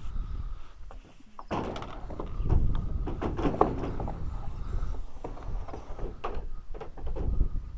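Sprinkler irrigation pipes being handled and set down, a run of knocks, scrapes and clatter starting about a second and a half in, over low rumble.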